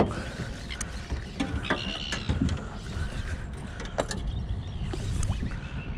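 Wind rumbling on the microphone in a small boat, with scattered clicks and knocks from handling a spinning reel and rod, and a brief higher-pitched sound about two seconds in.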